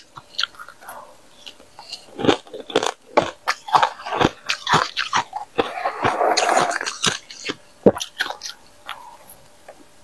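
A person biting into and chewing freezer frost: irregular sharp crunches close to the microphone, with a denser run of chewing about six seconds in.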